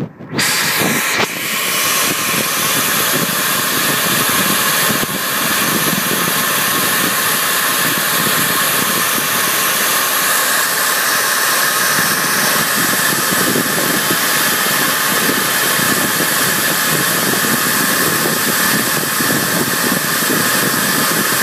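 Steady, loud rush of air moving through a sheet-metal HVAC return air duct, starting suddenly about half a second in and holding even throughout.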